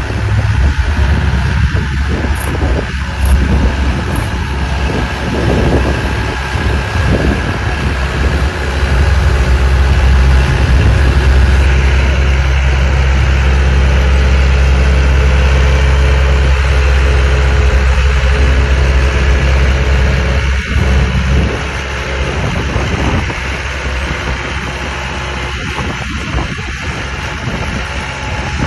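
Massey Ferguson diesel tractor engine working hard under load as it drags a weight-transfer pulling sled, running steadily. It gets louder partway through, then drops back to a lower, steadier run about three-quarters of the way in.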